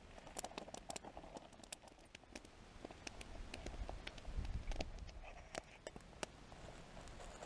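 Faint, irregular sharp clicks and crackles, with a low rumble swelling briefly about four seconds in.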